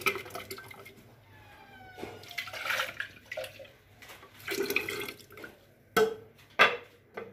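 Green coriander-mint paste and water being poured and splashed into a glass jug of liquid, with a rising tone around two to three seconds in. Two sharp clinks about six seconds in.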